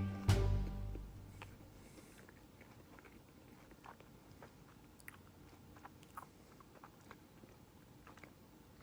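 Faint chewing of a crispy fried chicken sandwich, with scattered small crunches and clicks. A loud music chord fades out in the first second.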